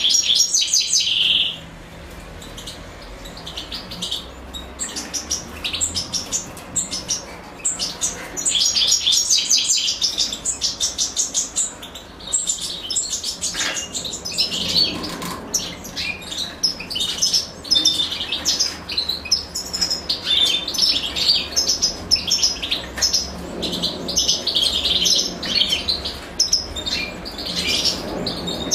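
European goldfinches, a female and her brood, chirping: fast runs of high, thin chirps that come again and again with short breaks.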